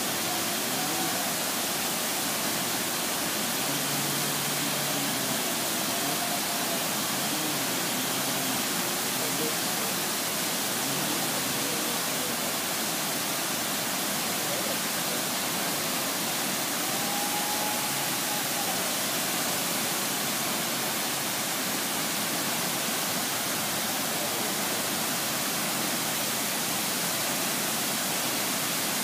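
Large waterfall's steady roar of falling water: a dense, even rush that holds level throughout.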